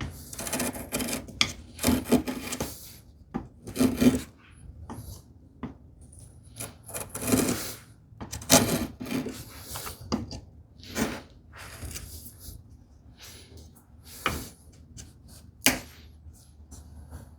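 A hand tool scraping and cutting a small wooden piece in a series of irregular strokes with short pauses between them, the strongest about halfway through.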